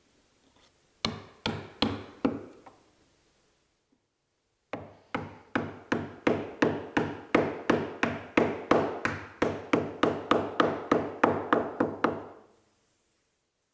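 Mallet knocking a steel hex nut down into a counterbored hole in a maple board. Four blows about a second in, then after a pause a steady run of about three blows a second for some seven seconds.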